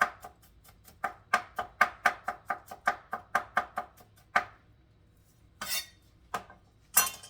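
Knife chopping garlic on a cutting board in quick, even strokes, about four a second, which stop a little past the middle. Two short scraping sounds follow near the end.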